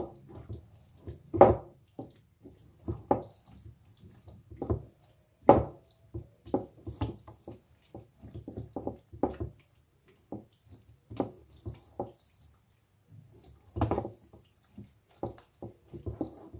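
Wooden spoon stirring a wet minced-meat filling in a stainless steel bowl: a run of short, irregular wet clicks and knocks of the spoon against the bowl, with a brief lull around ten seconds in.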